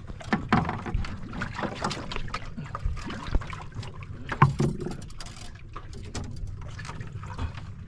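Irregular knocks, taps and scrapes on a wet wooden boat deck as a spiny lobster is handled on it, with the sharpest knock about four and a half seconds in. A steady low rumble runs underneath.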